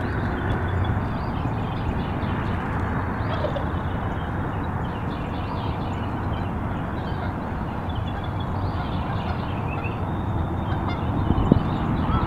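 Wild turkeys calling faintly and intermittently from the field, short scattered calls over a steady low rumble. There is a single knock near the end.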